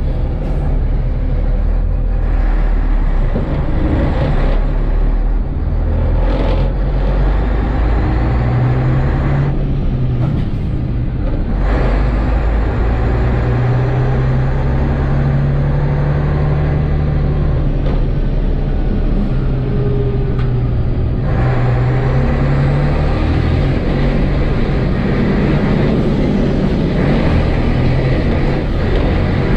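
Rába S16 racing truck's D2156 inline-six diesel running hard under load, heard from inside the cab, its low note rising and falling as the truck is driven round the track. The upper part of the sound thins briefly about ten seconds in and again about twenty-one seconds in. The recording is rough and breaking up from the cab's shaking.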